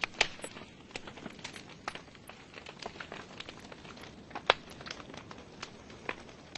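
Wood fire crackling in a fireplace: burning logs popping and snapping at irregular intervals over a soft hiss, with a sharp pop about four and a half seconds in.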